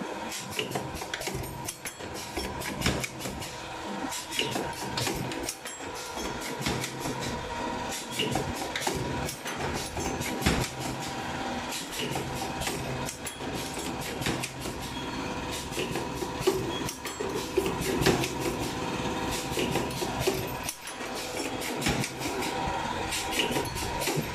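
Automatic wire ring forming and welding machine running: many irregular metallic clicks and knocks over a steady mechanical hum.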